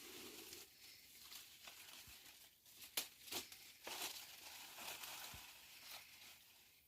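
Faint rustling and crinkling, broken by scattered sharp clicks and snaps that are loudest around three to four seconds in.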